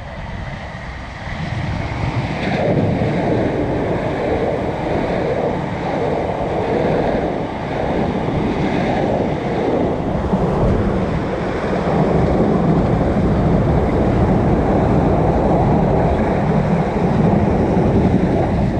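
Steady rushing noise of wind buffeting the microphone, mixed with the rumble of passenger trains running on the tracks below.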